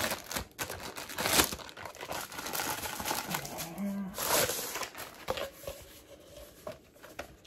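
Paper rustling and crinkling as a rolled poster is handled and unrolled, in irregular strokes with a sharper rustle about a second and a half in.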